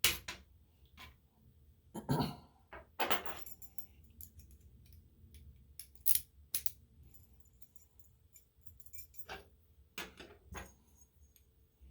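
Scattered small metal clicks and clinks as a Schlage Everest lock cylinder is handled and taken apart by hand.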